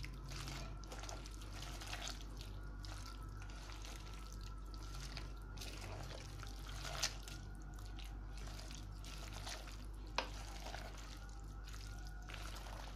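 Wet squelching and slopping of a hand kneading beef with yogurt, onions and spice paste in an aluminium pressure cooker. Two sharp knocks stand out, one about halfway and one later on, over a steady low hum.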